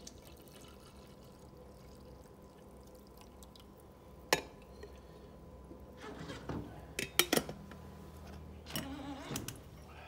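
Brewed coffee poured from a glass carafe into a glass mug, trickling and dripping. A sharp glass clink comes about four seconds in, and a quick cluster of clinks follows near seven seconds.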